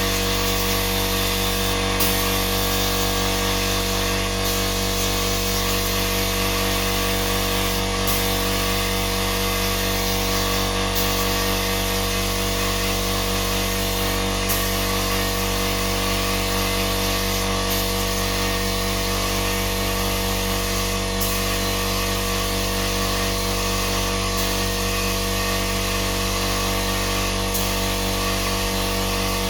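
A power tool's electric motor running steadily without a break, with a constant hum and whine.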